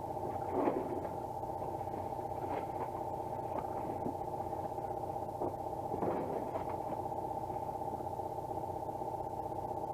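Hand tools knocking and clanking on exhaust manifold bolts under a vehicle, a few separate knocks with the largest around six seconds in, over a steady, even hum.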